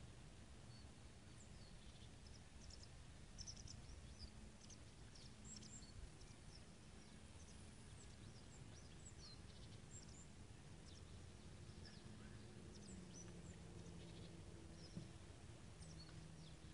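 Quiet pond-side ambience, near silence: faint, scattered high chirps of small birds over a low steady drone that drops a little in pitch near the end.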